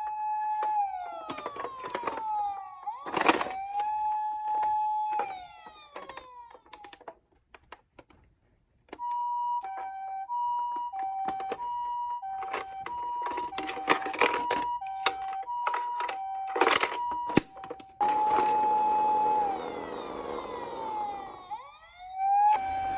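Electronic sirens of toy emergency-vehicle minicars: first a rising and falling wail, then after a short pause a two-tone hi-lo siren alternating about once a second, with a wail winding down and rising again near the end. Sharp clicks and knocks sound throughout.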